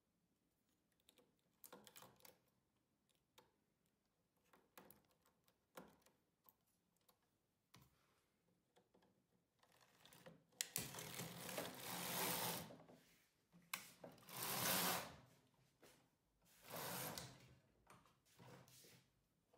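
Midgauge knitting machine: light clicks of a transfer tool moving stitches on the metal needles, then, about halfway through, the carriage pushed across the needle bed in three loud sliding runs, rasping over the needle butts.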